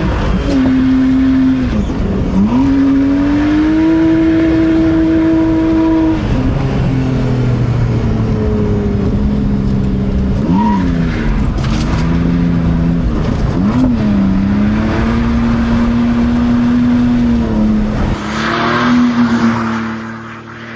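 A car engine revving hard while sliding on a wet road. Its pitch climbs, holds and drops over and over as the throttle is worked and gears change. Near the end a loud hiss of tyres on the wet surface rises over the engine.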